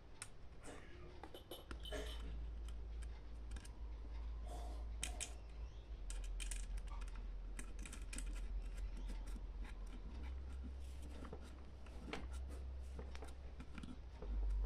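Irregular small clicks, taps and rattles of electronic parts being handled and fitted into a power supply's casing, over a low steady hum.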